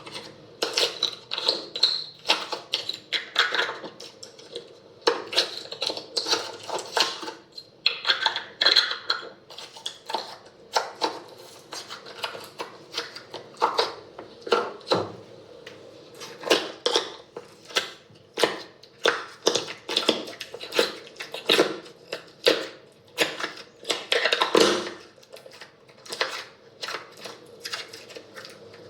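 Hands squishing, pressing and poking slime, giving a dense, irregular run of sticky pops and clicks.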